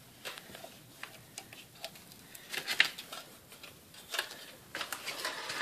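Faint scattered clicks and soft rustles, with a small cluster about halfway through and a few more near the end.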